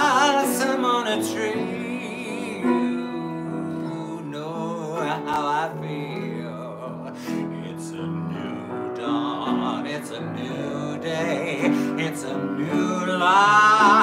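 A singer performs a slow ballad in 6/8 with acoustic guitar and upright piano accompaniment. Sung phrases with vibrato come and go over the steady strummed and played chords, swelling louder near the end.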